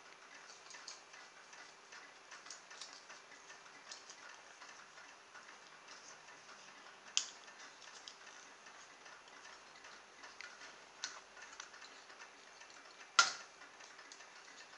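Small plastic clicks and taps as the shell, motor and parts of a toy vibrating massager are handled and fitted back together, with two sharper clicks, one about halfway through and one near the end.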